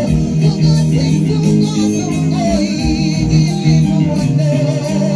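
Live gospel worship music: instruments over a steady bass line, with voices singing.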